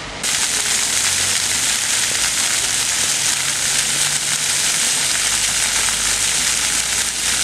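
Ground-level plaza fountain: many thin water jets spraying up from the paving and splashing back down onto it, a loud, steady hiss. It comes in abruptly just after the start.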